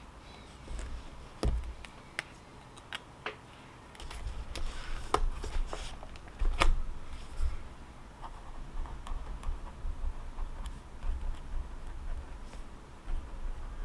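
Irregular light clicks and taps, several in quick succession, over a low rumble that grows louder about four seconds in.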